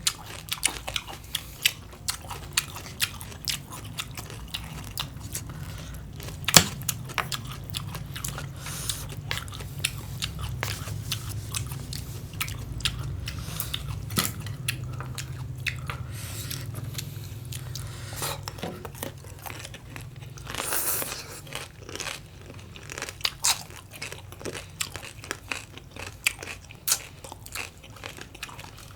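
Close-miked eating of crunchy green papaya salad and cucumber: crisp bites and chewing, with sharp crunches throughout, the loudest about six and a half seconds in.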